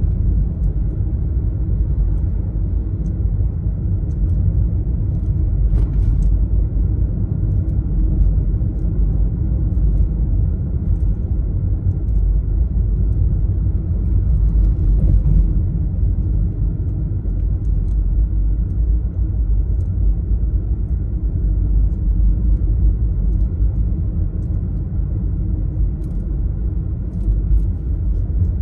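Steady low rumble of a car driving along: tyre and road noise with the engine underneath, and a few faint clicks.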